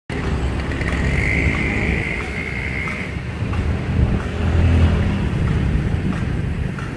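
Road traffic passing, a steady low noise that swells louder around the middle, with wind noise on the microphone.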